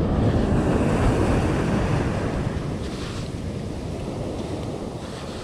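Ocean surf washing up onto the beach, with wind buffeting the microphone.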